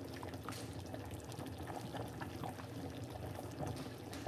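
Pot of chicken soup simmering on a hot plate at medium heat, bubbling under a loosely set lid: a steady run of small, irregular pops.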